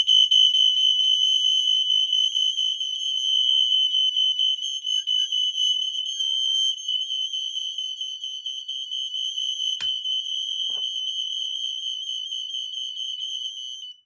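Fyrnetics 1285 smoke alarm sounding on test: one continuous high-pitched piezo tone, held unbroken for about fourteen seconds and then cut off suddenly. A single click comes about ten seconds in.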